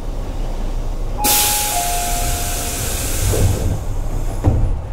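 Compressed-air hiss aboard a Tobu 8000 series electric train, starting suddenly about a second in and dying away after about two and a half seconds, with a steady whistle-like tone that steps down once, over the train's low rumble. A couple of dull thuds and a knock follow near the end.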